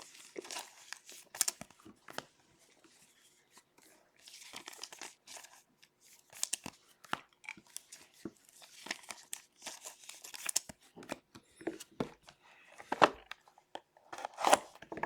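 Card packaging being torn open and crinkled, with cards being handled: a run of irregular tearing, crackling and rustling noises with sharp clicks.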